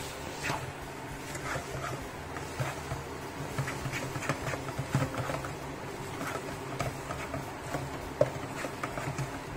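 Black slotted spatula scraping and tapping against a red frying pan as instant noodles are stir-fried, in short irregular strokes over a steady low hum, with one sharper knock about eight seconds in.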